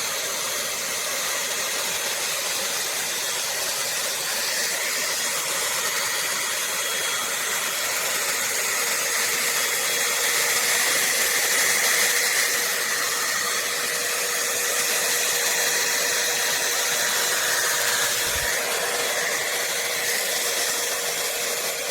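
T3 AireBrush hot-air dryer brush running steadily, its fan blowing a constant rush of air with a faint steady motor whine, as it is worked through a section of hair to lift and straighten it.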